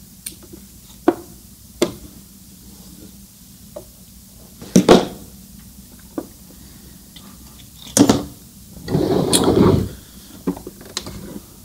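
Hand-handling noises at a Brother ST371HD sewing machine jammed by knotted thread: a few sharp clicks and knocks, then about a second of scraping rustle as the leather piece is worked free of the needle area.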